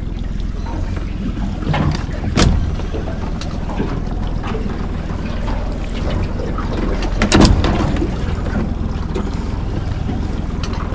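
Steady low rumble of wind on the microphone and water against a small boat drifting at sea, with scattered faint clicks and two louder knocks, a couple of seconds in and again past the middle, as a fishing reel is wound in.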